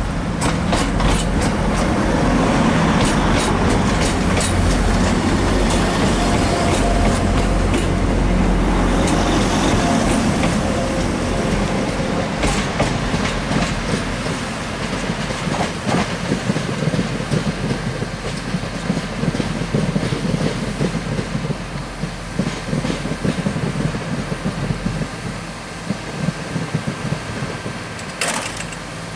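Class 175 diesel multiple unit running through the station, its Cummins underfloor diesel engines working and its wheels clicking over the rail joints and points. The sound fades over the last several seconds.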